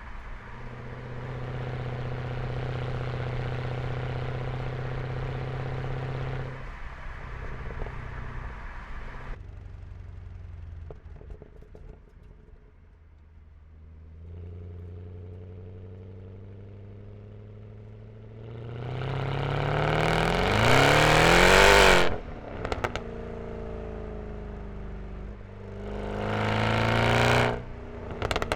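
Mercedes E63 AMG's M156 6.2-litre V8 through an exhaust with the resonator deleted. The engine holds a steady note, drops back to a quiet spell, and then twice accelerates hard with the pitch rising and the exhaust growing loud. Each pull cuts off suddenly when the throttle is lifted, the second one shorter.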